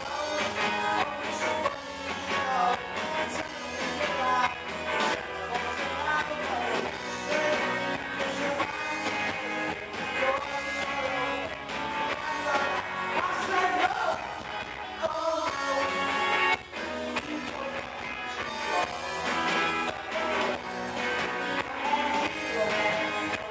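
Live rock band playing electric guitars and a drum kit.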